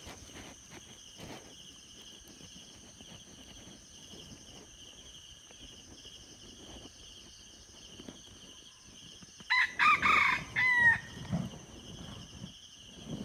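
Red junglefowl crowing once, a loud call about a second and a half long, starting about three-quarters of the way in.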